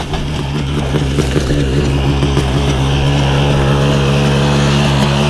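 Dirt bike engine running steadily at an even pitch while the bike lies on its side on the ice after a crash.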